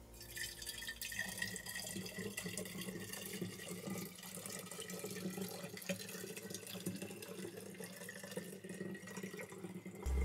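Pickling liquid poured through a funnel into a glass bottle, a steady trickle as the bottle fills.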